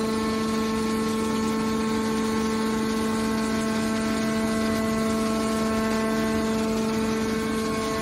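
Hydraulic scrap metal baler's power unit running, its electric motor and pump giving a steady, even whine while the hydraulic cylinder folds the baler's lid closed.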